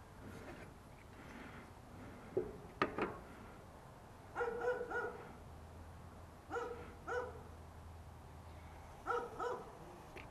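A dog barking faintly in pairs of short barks, three times over. There are a couple of sharp clicks about a quarter of the way in.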